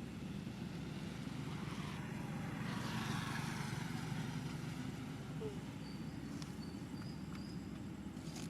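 A low, steady motor drone, most likely a passing road vehicle, swelling to its loudest about three seconds in and then fading. A few faint short high chirps come near the end.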